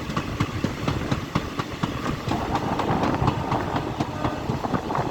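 Train wheels running along the rails: a rapid, irregular clatter of clicks over a steady low rumble, with a higher-pitched hiss joining about two seconds in.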